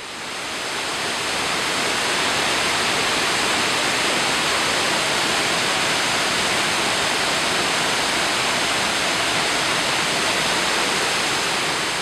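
Waterfall: water pouring over rocks in a steady, even rush that fades in over the first couple of seconds.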